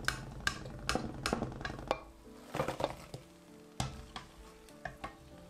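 A metal ladle clinking against the pan and a steel plate as fried mathri are lifted from the oil and dropped onto the plate. The sharp clinks and knocks come quickly in the first two seconds, then more sparsely.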